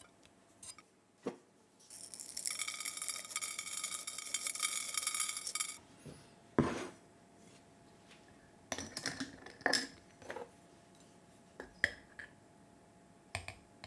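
Kitchen crockery and utensils being handled. A steady high squeal of something scraped on ceramic lasts about four seconds, then a ceramic dish knocks down onto a wooden table. Near the end come clinks and clicks from the glass lid of a swing-top jar and a metal spoon.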